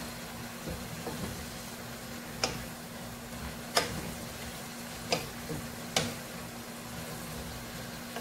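Wooden spatula stirring vegetables in a frying pan, knocking sharply against the pan four times with a few lighter taps between, over a steady low frying sizzle and a faint steady hum.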